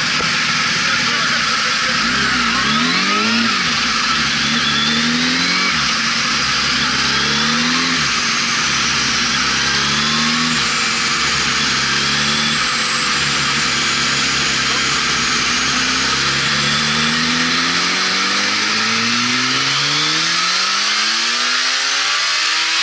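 Turbocharged Suzuki Bandit 1200's inline-four engine running hard on a roller dyno. Its pitch climbs and drops back several times, then makes one long rising pull near the end.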